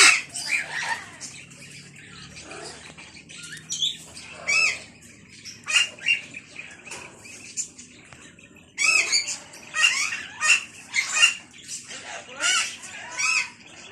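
Scarlet macaws giving harsh squawking calls, single ones and short bursts, quieter for the first few seconds and thickest about nine to eleven seconds in.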